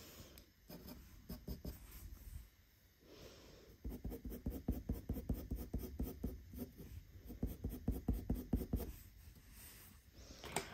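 Graphite pencil hatching on drawing paper: short, quick strokes, fainter at first and densest from about four seconds in to near nine seconds.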